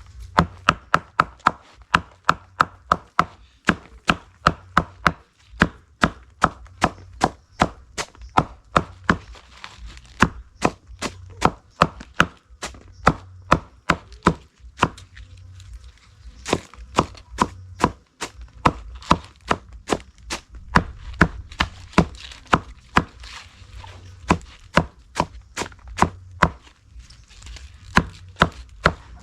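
Knife chopping on a cutting board in a steady rhythm, about two to three strokes a second, with a brief pause about halfway through.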